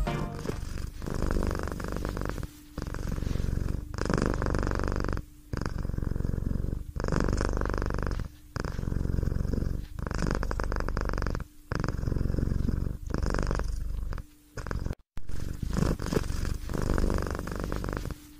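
Domestic cat purring steadily in a slow rhythm: about a dozen stretches of a second or so each, with short breaks between them as the cat breathes in and out.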